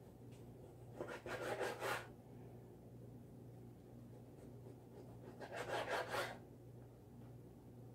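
Kitchen knife slicing through raw chicken breast on a plastic cutting board. Two short bouts of quick back-and-forth knife strokes, each about a second long, come about a second in and again past the middle.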